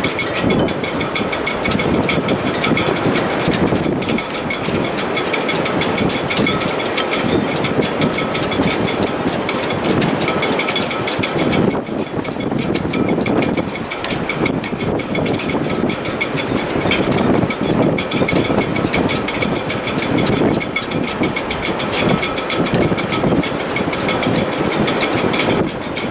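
Strong wind in a sailboat's shrouds in heavy weather: a loud continuous rush that surges and eases in gusts, with a thin steady whistle above it.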